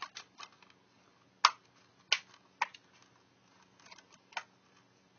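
Plastic Blu-ray case being handled and snapped open: a series of sharp plastic clicks, the loudest about a second and a half in, with a few more spread through the rest.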